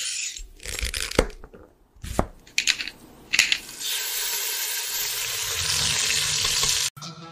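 Logo-intro sound effects: a few quick swishes and clicks, then a steady hiss that grows slightly louder and cuts off suddenly near the end.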